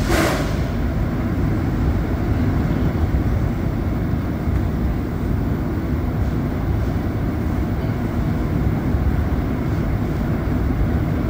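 Running noise of a Montreal Metro Azur rubber-tyred train heard from inside the car: a steady low rumble as it rolls through a station without stopping. A brief hiss right at the start.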